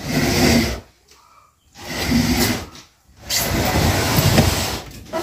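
A sofa section dragged across a tiled floor in three long scrapes, with short pauses between the pulls.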